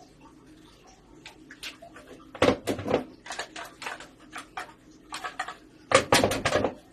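Clinks and knocks of a utensil and a tin can against a bowl as canned tuna is emptied into it. Two louder bursts of quick knocking come about two and a half and six seconds in.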